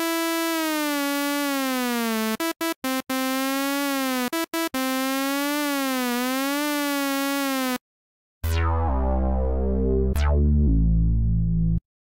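Korg microKORG software synthesizer playing its 'Monotron' preset: a single buzzy sawtooth lead line whose pitch glides slowly up and down, broken by a few short stabbed notes. After a brief silence, a deeper synth sound follows with low bass notes and two fast downward zap sweeps.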